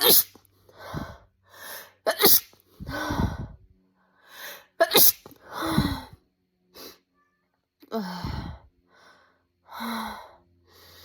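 A woman sneezing three times: once at the start, once about two seconds in and once about five seconds in. Each sneeze is loud and sharp and comes after a drawn-out gasping 'ah' in-breath. Near the end she gasps twice more as another sneeze builds.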